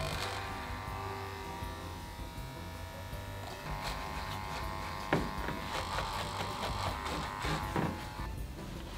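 Electric hair clippers running with a steady buzz as they cut a mannequin head's hair; the buzz shifts in tone about three and a half seconds in and stops shortly before the end, with a couple of small knocks along the way.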